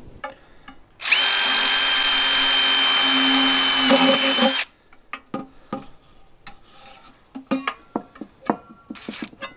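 DeWalt 20-volt cordless driver running steadily with a high whine for about three and a half seconds, driving a self-tapping metal screw into a galvanized steel vent pipe, then stopping. Light clicks and taps from handling the pipe and tool follow.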